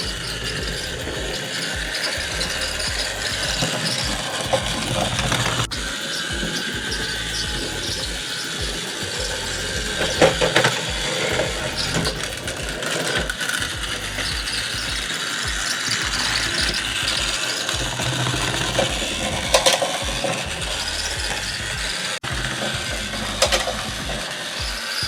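Battery-powered TrackMaster Thomas toy train running on plastic track, its small motor and gearbox giving a steady whirring, gear-like rattle, with a few sharp clicks along the way.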